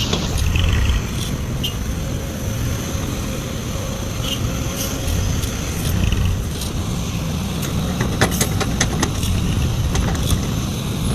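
Heavy diesel machinery running steadily, a low engine rumble, with a quick run of sharp knocks about eight seconds in.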